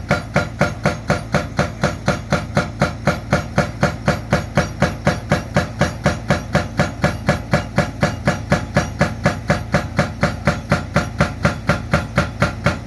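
Hydraulic breaker on a Sany excavator hammering concrete in a steady, even rhythm of about three to four blows a second.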